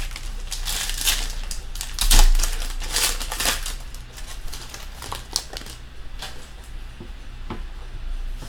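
Trading cards and their packaging handled close up: a run of quick sliding, rustling strokes and light clicks as cards are shuffled and set down, with a louder knock about two seconds in.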